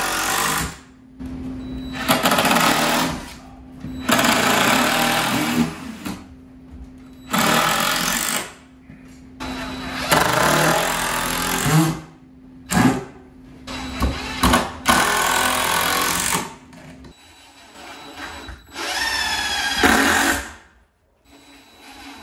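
A cordless power driver drives screws through a wooden stud into the wall framing. It runs in repeated bursts of one to two seconds, about eight in all, and the last bursts end in a rising whine.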